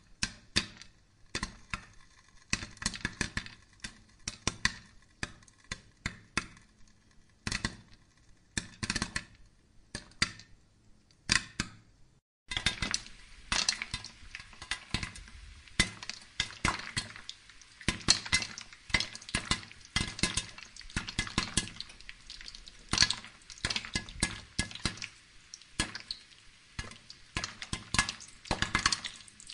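Corn cobs roasting on live charcoal fanned by hand: irregular sharp clicks and crackles, several a second. About twelve seconds in the sound drops out for a moment, then returns denser, with a steady hiss under the crackling.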